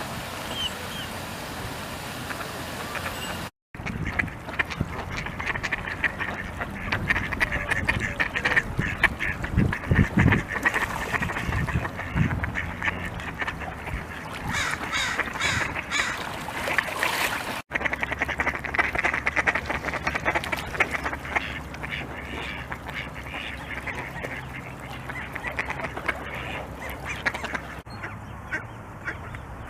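Khaki Campbell ducks quacking over and over, the calls coming thick and fast. The sound breaks off abruptly three times as one recording gives way to the next.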